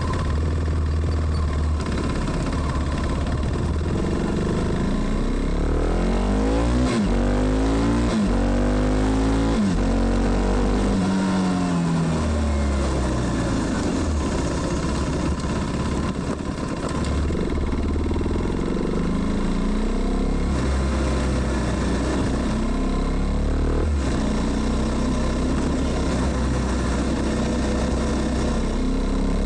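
KTM Duke 390's single-cylinder engine under way: it pulls hard through several quick upshifts, pitch climbing and dropping back at each shift, then winds down as the bike slows, and runs on at part throttle with smaller rises and falls.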